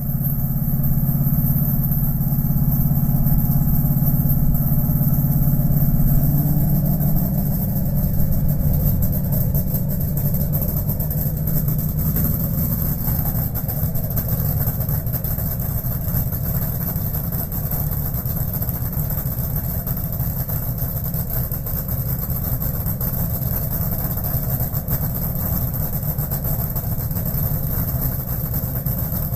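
A/Fuel nitro dragster engine idling during a warm-up. It runs steadily, easing slightly quieter and rougher about seven seconds in.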